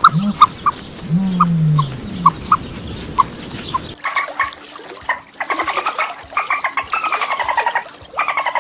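Domestic fowl calling: short chirps at uneven intervals over a few low sliding calls, then, after a cut about four seconds in, fast runs of rattling, clucking calls.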